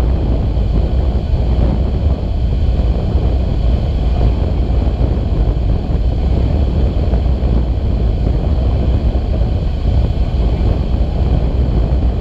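Steady, loud wind rush buffeting the microphone as a tandem hang glider flies through the air, a low rumble with no breaks.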